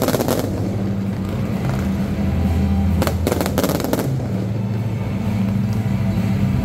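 Fireworks going off in rapid volleys of sharp shots: one crackling cluster right at the start and another about three seconds in, each lasting about a second, over a steady low background of music.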